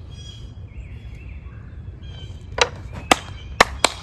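Four sharp clicks in the last second and a half, from a knife and a keychain ferro rod being handled, over faint bird chirps.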